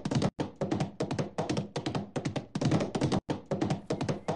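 A rapid, uneven run of sharp taps or clicks, several a second, with a few brief breaks.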